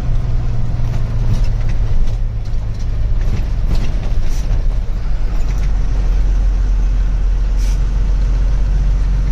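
Truck's diesel engine running steadily, with a low note that grows stronger about halfway through and a few brief faint hisses or clicks above it.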